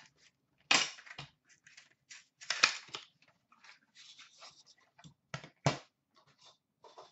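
A knife slitting and tearing open the sealed cardboard of a trading card box, with rustling as the box is handled, then a few sharp clicks and knocks as a hard plastic card holder is set down near the end. The loudest tearing comes about two and a half seconds in.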